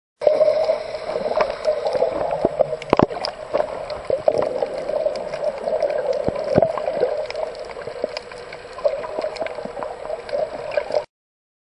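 Underwater sound picked up by a snorkeler's camera: a steady hum with gurgling water and scattered clicks and knocks, the loudest about three seconds in. It begins abruptly and cuts off suddenly near the end.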